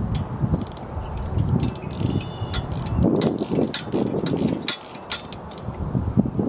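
A 3/4-inch ratcheting wrench clicking in short runs of quick clicks as it backs the fill plug out of the top of a three-point-hitch post hole digger's gearbox.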